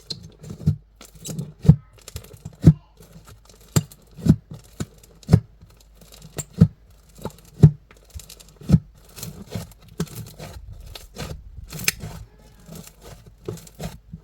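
Crunchy slime being pressed and poked by hand. Sharp pops come about once a second, each with a low squish, and give way near the end to softer, continuous crackling.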